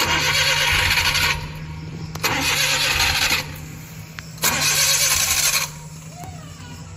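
Suzuki K6A three-cylinder engine cranked on its starter three times, about a second each, without catching. It is an engine that is hard to start once cold, which the mechanic puts down to valve clearance.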